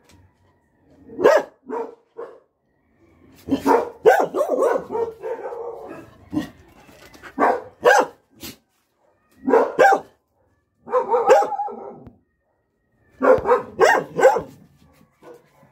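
Pet dogs barking in short bursts of a few barks each, separated by pauses of a second or so.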